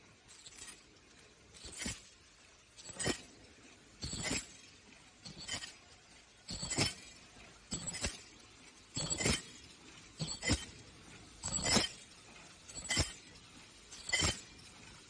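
Automatic KN95 mask-making machine running at speed: a sharp knock, often doubled, repeats about every 1.2 seconds with each machine cycle, over a low steady background.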